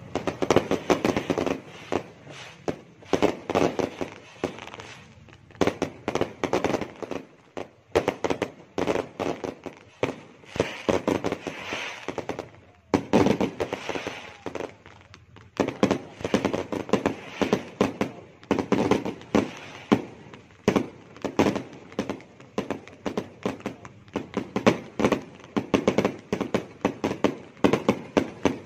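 Many fireworks and firecrackers going off in rapid, overlapping bangs and pops, a near-continuous barrage with a couple of brief lulls about halfway through.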